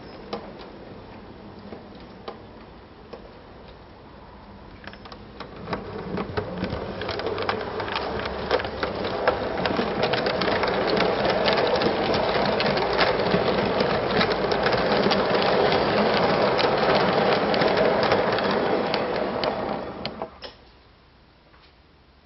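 O gauge model train running past on the track: a motor whirr with rapid clicking from the wheels on the rails. It builds over several seconds, stays loud for about ten seconds, then cuts off suddenly near the end.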